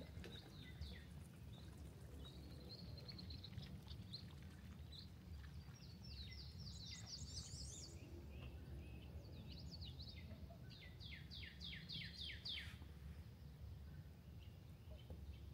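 Faint songbirds singing: scattered high chirps, a quick run of notes about halfway through, and a series of about eight rapid falling notes a little later, over a steady low rumble.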